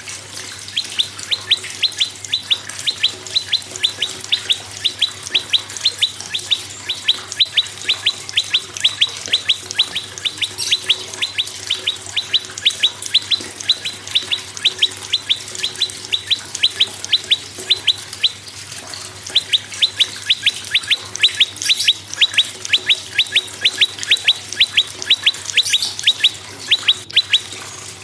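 Prenjak singing a long, fast series of sharp, down-slurred notes, about three a second, with one short break about two-thirds of the way through.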